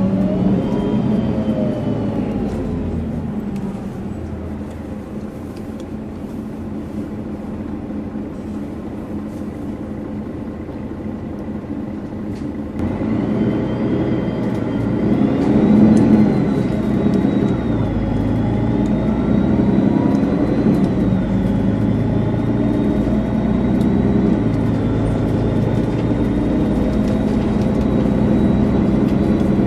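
Mercedes-Benz Citaro G articulated bus's diesel engine and turbocharger heard on board: the engine note falls as the bus slows in the first few seconds and stays lower for a while, then about 13 seconds in the engine pulls harder and a high turbo whistle rises and wavers above it.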